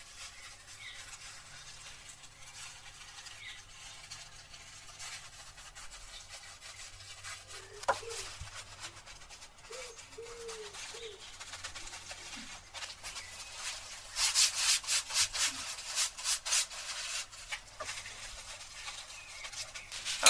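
Plastic-gloved hands rubbing and sliding over soft dough and a silicone baking mat. It is faint for most of the time, then a run of quick rubbing strokes comes about two-thirds of the way in.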